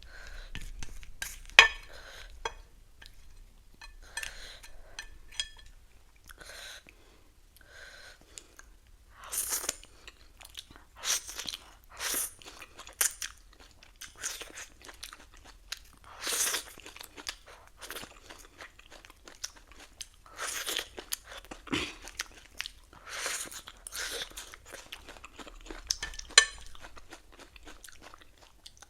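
Close-up sound of a person biting and chewing crisp lettuce, with irregular crunches. Two sharp clicks, one about one and a half seconds in and one near the end, are the loudest sounds.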